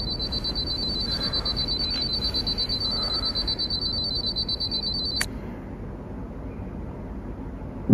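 Smartphone alarm ringing: a high-pitched electronic tone that stops abruptly with a click about five seconds in, as the alarm is switched off.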